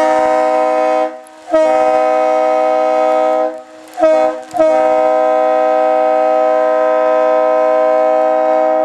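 Leslie RS-3L-type three-chime locomotive air horn blown on compressed air through a household ball valve, in four loud blasts of a steady multi-note chord. The blasts last about a second, about two seconds and half a second, then a long one of about four and a half seconds.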